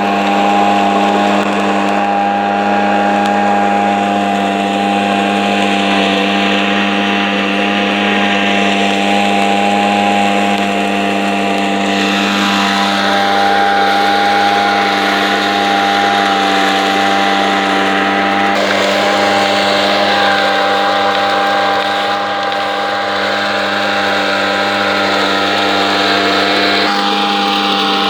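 Olive ground-collecting machine running steadily, a constant mechanical hum with a few fixed tones over a rushing noise, shifting slightly a few times.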